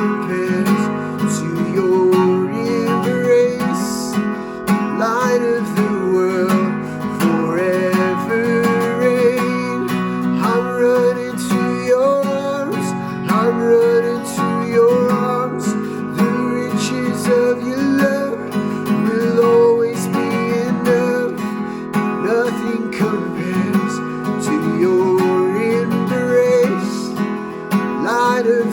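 Instrumental break in a worship song: strummed acoustic guitar chords with a melody line moving above them.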